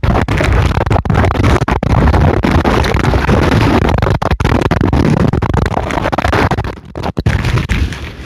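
Storm-force wind buffeting the microphone: a loud, continuous rumbling rush that cuts out briefly a few times.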